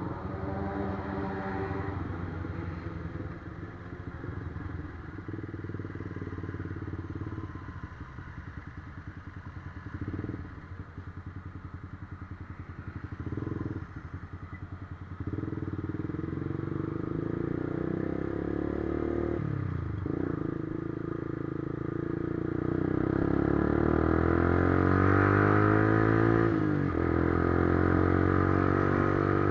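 Motorcycle engine running under way. The revs climb in the last third, with sudden drops at gear changes about two-thirds of the way in and again near the end.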